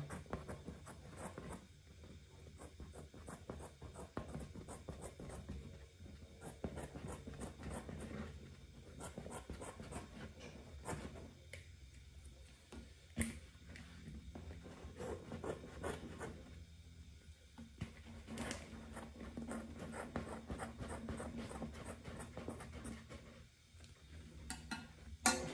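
Scissors snipping through a dried papier-mâché shell, with the stiff paper crackling and rustling as scraps are pulled away: faint, irregular small clicks, with one sharper snap about halfway through.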